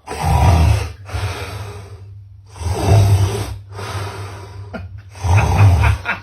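A man snoring loudly: three long snores, about two and a half seconds apart.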